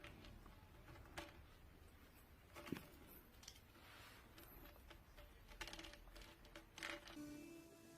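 Near silence: faint room tone with a few scattered soft clicks and taps.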